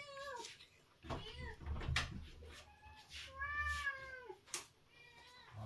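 A cat meowing several times, with short rising-and-falling calls and a longer one about three and a half seconds in, and a couple of faint sharp clicks between.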